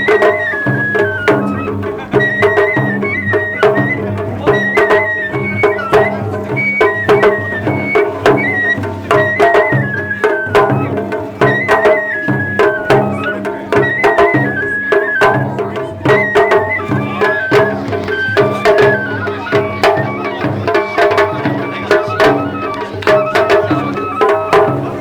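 Japanese festival hayashi music: a bamboo flute playing a high, repeating melody over quick, steady drum strokes.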